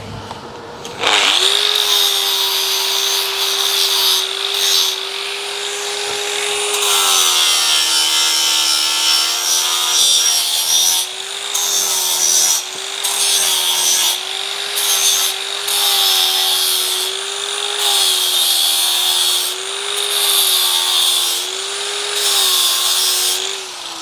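Handheld power grinder working metal: the motor starts about a second in and runs with a steady whine whose pitch sags each time it bites, under a harsh high-pitched grinding hiss that comes and goes. Near the end it is switched off and starts to spin down.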